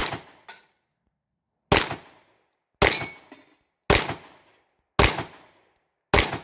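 Sarsilmaz B6 hammer-fired 9mm pistol fired six times in slow, steady fire, the shots roughly a second apart. Each shot has a short echoing tail.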